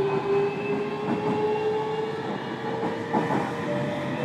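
Inside a JR Kyushu 305 series motor car: the Toshiba VVVF inverter and permanent-magnet synchronous traction motors whining, the tone slowly rising in pitch as the train picks up speed. Underneath is the rumble of wheels on rail, with a few rail-joint clicks.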